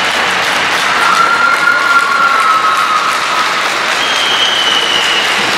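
Applause from a small group of onlookers, steady throughout, with a long high-pitched tone over it about a second in and another near the end.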